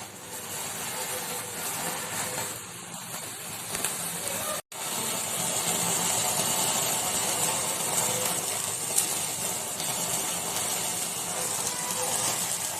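Steady hiss of a gas stove burner flame, with a skewer of marinated chicken kabab held in it to char. The sound breaks off for an instant a little under five seconds in.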